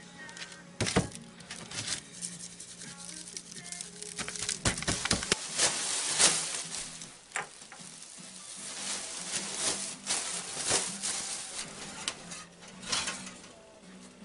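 A few knocks, then clothes being handled and stuffed into a plastic bag, rustling in irregular bursts, over a low steady hum.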